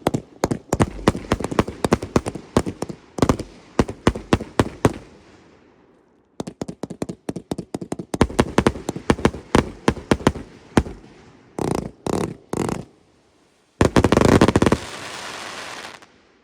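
Multi-shot fireworks cakes firing rapid volleys of shots and bursts. The volley stops for about a second and then starts again, three single bangs follow, and near the end a dense, loud burst of crackling noise fades out.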